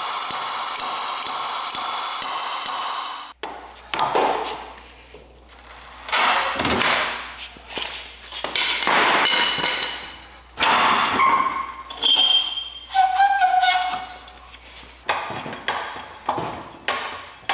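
Irregular metal-on-metal strikes and clanks on the rusty steel frame and leaf-spring shackle of a 1968 Datsun 520 pickup, several of them ringing on with a clear tone. They follow about three seconds of a steady, even sound.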